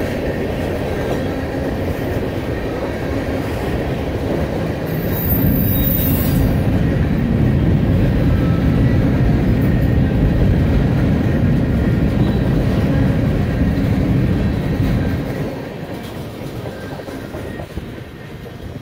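Freight train cars rolling past at close range, steel wheels rumbling and clattering over the rail. The sound gets louder about five seconds in, then drops away near the end as the last cars pass.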